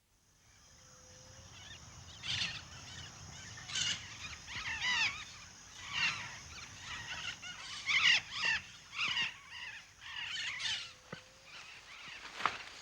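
Rainforest animal calls: a string of short calls that bend up and down in pitch, coming in irregular clusters every second or so, over a steady high insect buzz.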